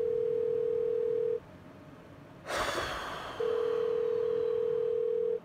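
Telephone ringback tone: a steady tone rings for about two seconds, pauses, then rings again for about two seconds. This is the sound of an outgoing call ringing at the other end, not yet answered. A short burst of noise falls in the pause.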